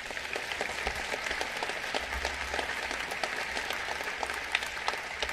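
Audience applauding, many hands clapping together.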